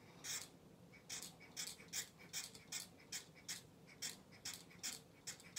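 Hand-pumped nozzle applicator on a bottle of Toppik hair-building fibers puffing out fibers in a quick regular series of short puffs, about two a second.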